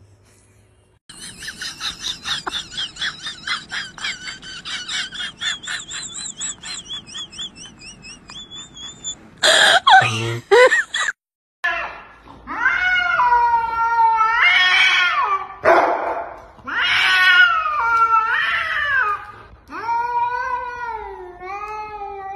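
Cats yowling at each other in long calls that waver up and down in pitch through the second half. Before that come a run of rapid, high, pulsing calls and a brief loud burst.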